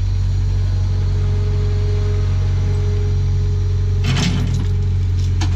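Skid-steer loader's diesel engine running steadily under load while it holds a lifted engine on a chain, with a short burst of clattering about four seconds in and another at the very end.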